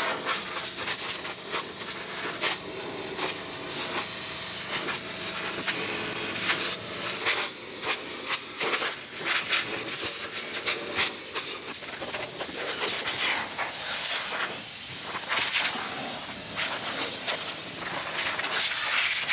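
Compressed-air blow gun hissing in a long, unsteady blast, blowing loose carbon-fibre dust and fibres off the trimmed bonnet edges.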